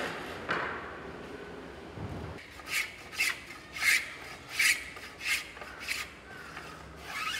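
Hand tool scraping along a wooden plank in short, regular strokes, about seven of them, roughly one every two-thirds of a second, starting a little over two seconds in.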